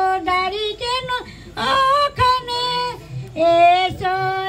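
A woman singing a Bhadu folk song, holding long notes in phrases broken by short pauses.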